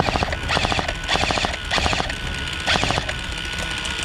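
Airsoft M249-style light machine gun firing short bursts in quick succession, about two a second, each a fast rattle of shots.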